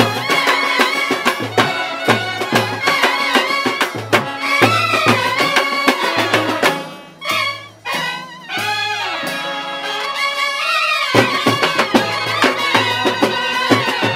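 Kerala bandset of clarinets, trumpets and trombones playing a Malayalam film-song melody over bass drum, side drums and cymbals. A little past the middle the drums drop out and the level dips briefly; the drums come back in about three seconds before the end.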